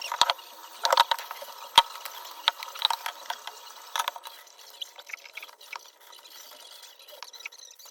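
Kitchen food-preparation handling: a run of irregular clicks and taps with some wet, squelchy sounds, busiest in the first four seconds and thinning out afterwards.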